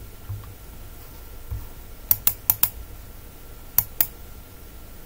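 Computer keyboard keys being typed: a quick run of four keystrokes about two seconds in, then two more a couple of seconds later.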